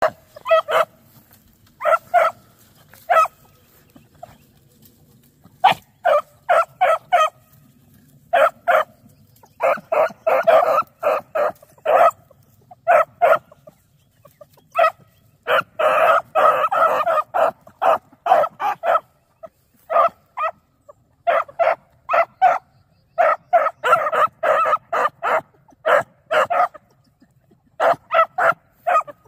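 Beagle pups baying on a rabbit's scent: short, high yips and barks in quick clusters, with brief pauses between runs and the busiest stretches in the middle and later part.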